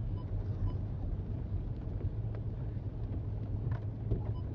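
Vehicle engine running with a steady low rumble, heard from inside the vehicle. A faint beep sounds about twice a second in the first second and again near the end.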